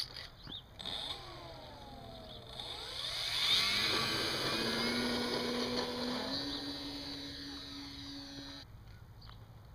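A home-made foam RC airplane's motor and propeller whining in flight, the pitch sweeping as it passes and loudest about three and a half seconds in. It then holds a steady tone that steps up slightly and cuts off suddenly near the end.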